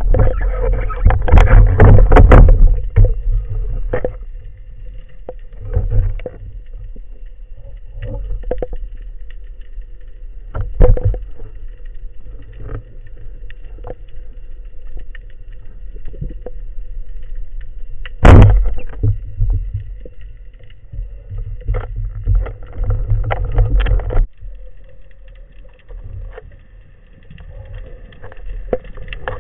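Underwater noise heard through a speargun-mounted camera housing: a low rumble of water moving past the housing over a faint steady hum. Irregular knocks and bumps cluster in the first two seconds and around 22–24 seconds, with the loudest a single sharp knock about 18 seconds in.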